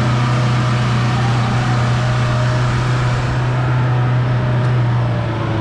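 Mahindra 4x4 jeep's engine running at a steady pitch, a constant drone that drops slightly near the end.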